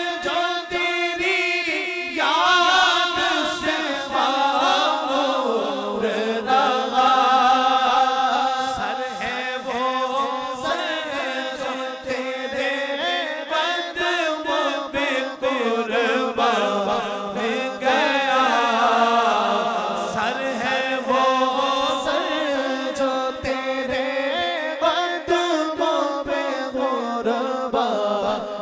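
Unaccompanied male voices singing a naat: a lead singer's long, wavering melodic lines with backing singers joining in.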